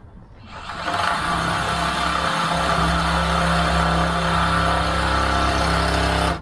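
DeWalt cordless drill running with a larger bit, widening a pilot hole drilled through a car bonnet. The motor winds up about half a second in, runs steadily under load, and stops abruptly near the end.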